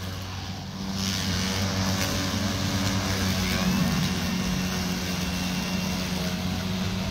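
Two battery-powered push mowers, a Stihl and an EGO, running side by side and cutting grass. Their motors and blades make a steady hum and whir, a little louder from about a second in.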